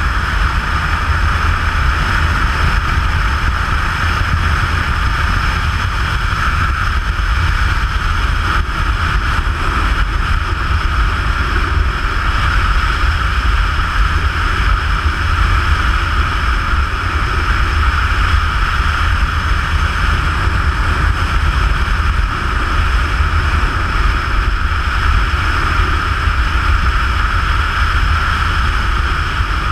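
Steady rush of wind and road noise on a camera mounted on a vehicle moving at road speed, with a deep rumble underneath and a constant hiss.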